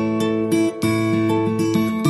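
Background music: strummed guitar chords.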